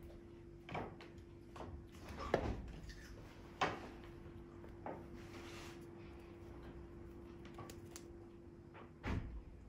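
Scottish Fold kitten pouncing after a wand toy, its jumps and landings on the rug making about five scattered soft thumps and knocks, over a steady faint hum.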